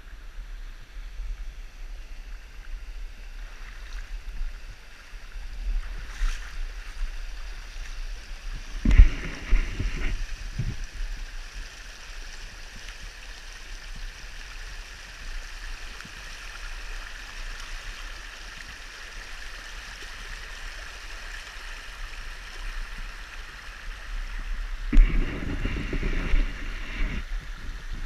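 Shallow creek water running over cobble riffles, heard close to the water's surface. Water splashes and sloshes loudly about nine seconds in and again for the last few seconds.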